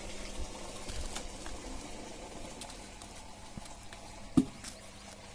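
Knives cutting into and scooping out watermelon flesh: faint scattered scraping and ticks, with one dull thump about four seconds in.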